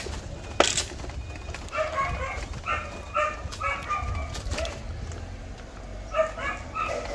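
A dog barking in several quick runs of short barks, with a sharp click about half a second in.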